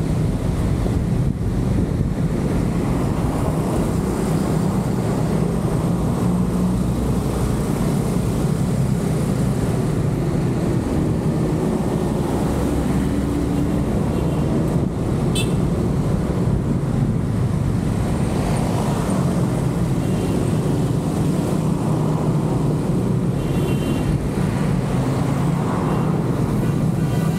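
Steady low rumble of engine and road noise from a car being driven, with a brief click about halfway through.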